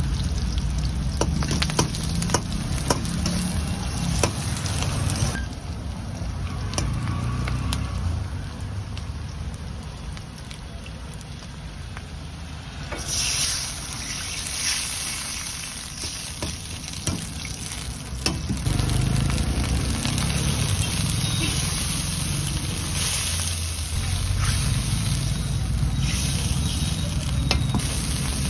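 Shallots, green chillies, ginger and garlic sizzling in hot oil in an iron wok, with sharp clicks and scrapes of a metal ladle. About 13 seconds in, water poured into the hot oil sets off a louder hiss that settles into a bubbling sizzle. A steady low rumble runs underneath.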